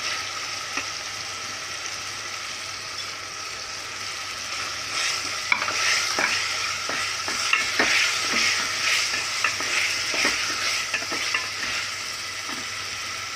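Chicken pieces sizzling in oil in an aluminium pot while a wooden spatula stirs and scrapes through them. The stirring gets busier and louder in the middle, with many quick scraping strokes over the steady sizzle.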